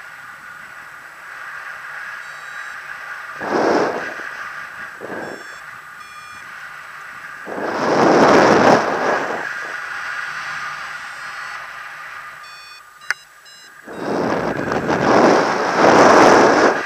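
Wind rushing over the microphone of a camera flying under a paraglider, in gusts that swell strongest about eight and fifteen seconds in. Between the gusts come a few short electronic beeps and one sharp click about thirteen seconds in.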